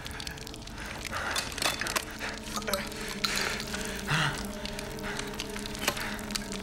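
Horror film soundtrack: a low, sustained music drone sets in after a couple of seconds, under scattered small clicks and short hissing, breathy noises.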